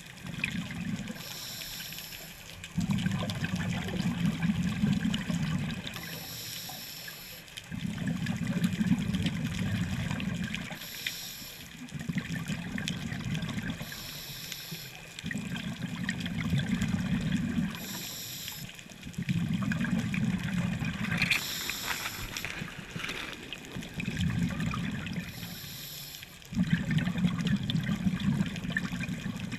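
Scuba diver breathing through a regulator underwater: a short hiss on each inhale, then a longer, louder burst of bubbling on each exhale, seven breaths about four seconds apart.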